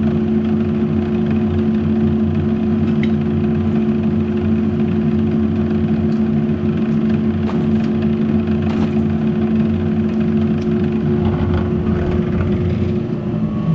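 Wen bench drill press motor running steadily with a constant hum, spinning the BN2 taper-crimp die, with a few faint clicks over it.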